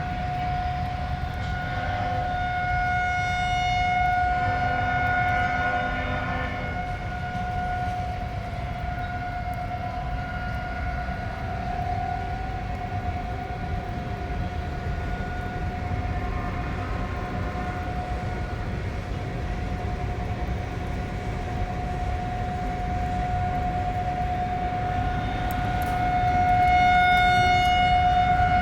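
Outdoor tornado warning siren sounding a steady held tone during a test. Its loudness swells and fades, loudest near the end, over a low rumble.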